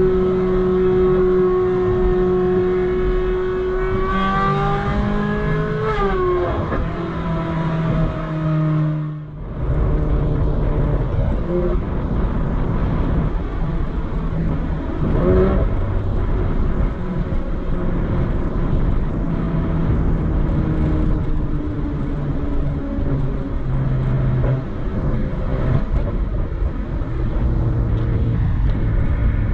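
Ferrari 458 Spider's 4.5-litre V8 running on the move: steady revs at first, then the pitch rises and falls a few seconds in. The sound drops briefly about nine seconds in, and the engine then carries on with a lower, rougher note.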